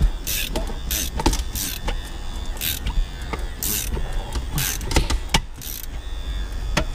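Raptor wire-winding windshield cutout tool being cranked in short, irregular strokes, about a dozen, each a harsh rasp as the cutting wire is drawn through the windshield's urethane bead.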